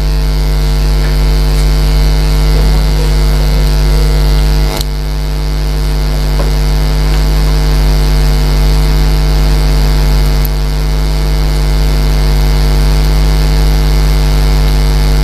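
Loud, steady electrical mains hum with a ladder of overtones, the buzz of electrical interference on the recording. A single brief click comes about five seconds in.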